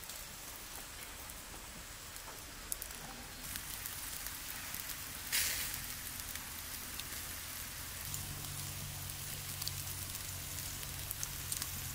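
Charcoal embers crackling and hissing under whole chickens roasting on skewers, a steady patter of small pops, with one louder sharp hiss about five seconds in.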